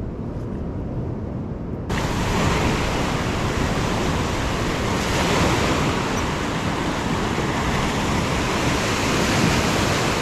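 Surf washing over coastal rocks, with wind blowing on the microphone, a steady rushing noise. About two seconds in it suddenly gets louder and brighter, then holds steady.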